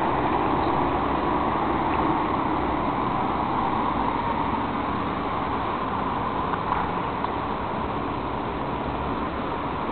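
Road traffic on a city street: cars driving past, a steady rushing noise that eases slightly toward the end.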